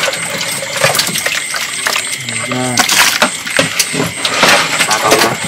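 Live catfish being scooped and handled in a container: a rapid, irregular clatter of clicks and knocks.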